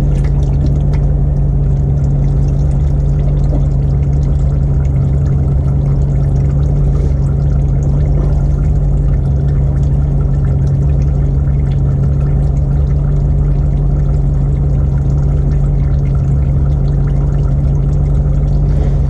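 Warm engine oil pouring in a steady stream from a GMC 1500HD's 6.0-litre V8 oil pan into a drain pan, over a steady low hum.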